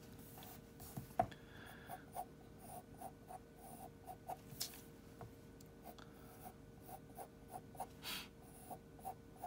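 Pencil lead scratching on paper in many short, quiet strokes, a few a second, while sketching a curve.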